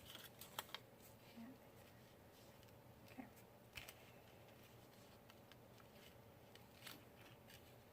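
Near silence, with a few faint taps and light rustles of paper pieces being handled and laid down on a scrapbook page.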